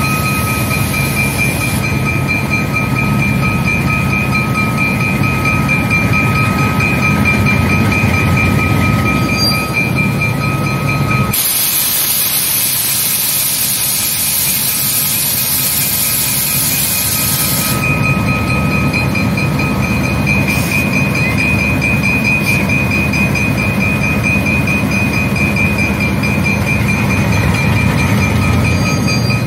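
Two GE U20C diesel-electric locomotives moving slowly with a heavy train: V12 diesel engines running under load with a steady high whine over them. A loud hiss of air cuts in about eleven seconds in and lasts about six seconds, covering the engine sound.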